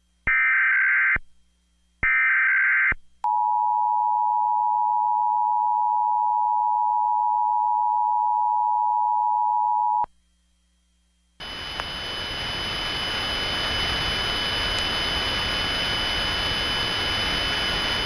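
Emergency Alert System test tones: the last two of three short bursts of the SAME digital header, then the two-tone attention signal (853 and 960 Hz together) held steady for about seven seconds. After a second of silence a steady hiss with faint high whining tones comes up and grows slightly louder.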